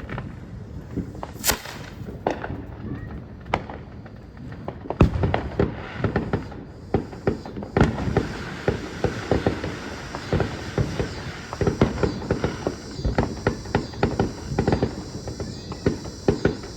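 Fireworks going off: a few separate sharp cracks, then from about five seconds in a dense, rapid run of pops and crackles.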